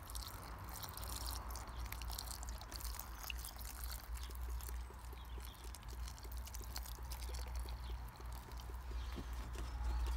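Water pouring from a watering can's spout onto compost in a plastic air-pot, trickling and dripping as it soaks in; the pour stops near the end.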